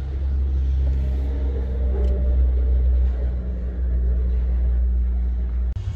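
Freight train's covered hopper wagons rolling past on the track, a steady deep rumble with some faint higher tones above it, cutting off abruptly near the end.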